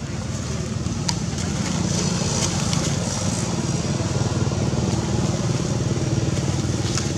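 A motor engine running steadily at a low, even pitch, with a few faint clicks over it.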